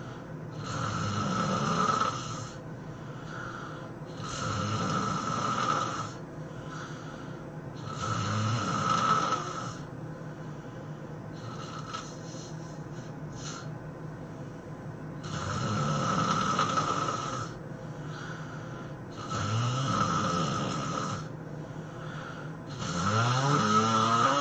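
A sleeping person snoring: six long snores, one every three to four seconds, with a pause of about five seconds midway.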